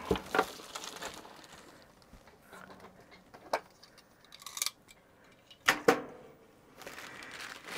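Sparse handling noises on a workbench: a few light clicks and a short rustle of the clear plastic bag sealed around a computer case. The loudest is a pair of sharp clicks about six seconds in.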